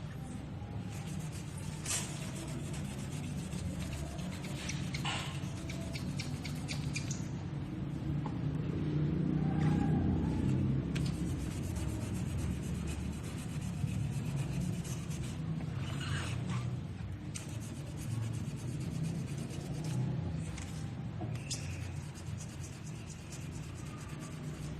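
Steady rubbing and sanding on a powder-coated surface, a low rumbling scrub that swells for a few seconds near the middle, with a few short squeaks.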